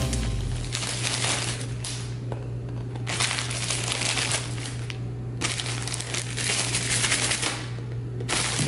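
Crinkling and crumpling of a plastic Pixy Stix candy bag and its paper straws as a hand puppet chews and shakes it. It comes in several long rustling bursts with short pauses between, over a steady low hum.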